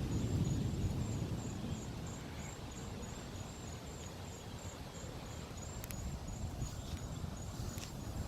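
Low rumble of distant thunder fading away over the first couple of seconds. Crickets chirp throughout in a steady, high, even pulse, and a few faint ticks come near the end.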